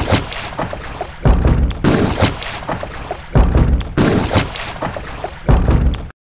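Rushing river water around kayaks being paddled down a fast stretch, with several loud low thumps.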